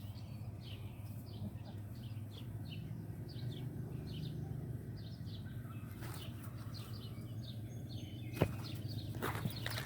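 A bird chirping over and over, short high chirps about two a second, which stop about five seconds in, over a steady low hum. A sharp knock sounds about eight seconds in, followed by a few fainter clicks near the end.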